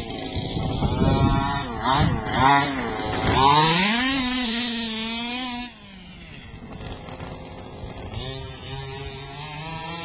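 Gasoline radio-controlled car's small two-stroke engine revving up and down, its pitch rising and falling several times. A little over halfway through it drops suddenly to a quieter, lower, steadier buzz.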